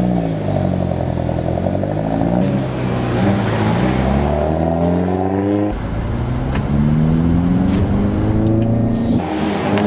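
Hyundai Veloster N's 250 hp turbocharged 2.0-litre four-cylinder accelerating hard. The revs climb, fall back and climb again several times.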